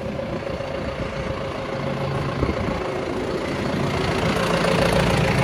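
John Deere tractor's diesel engine idling steadily, growing louder toward the end.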